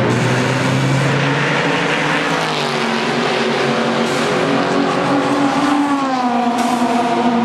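Race car engines running hard on the circuit, several engine notes overlapping. The pitch drops about a third of the way in and climbs again near the end as the cars lift off and accelerate.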